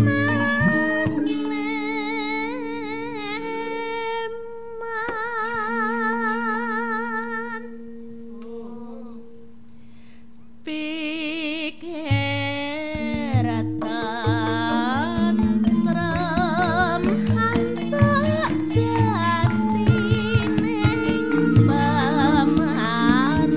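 Javanese gamelan ensemble playing, with sustained ringing bronze tones under a female sindhen singing with wide vibrato. The music thins and drops in level for a couple of seconds around eight seconds in, then the full ensemble comes back in abruptly about ten and a half seconds in.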